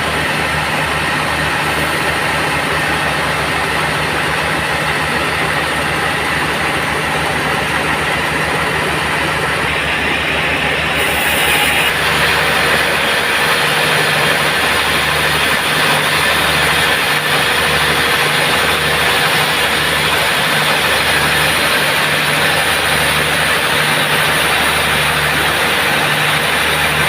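Band sawmill running steadily with a low pulsing hum, growing louder and brighter about twelve seconds in.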